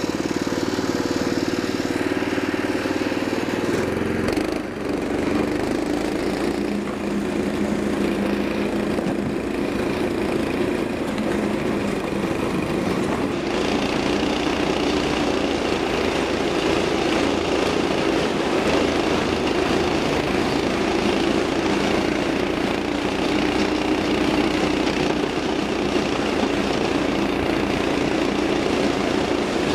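Small 6.5 hp clone engine, a single-cylinder pull-start four-stroke, driving a homemade tracked sled. It runs steadily under load as the sled moves along the snow.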